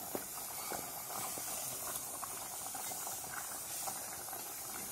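Hot oil tempering of garlic, green chillies and curry leaves scraped from a small pan into a pot of simmering papaya tamarind stew: a steady soft hiss with light scrapes and ticks of a wooden spatula against the pan.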